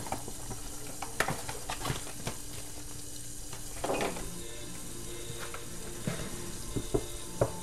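Food sizzling steadily in a lidded frying pan on the stove, with a few short clinks and knocks of pots and dishes.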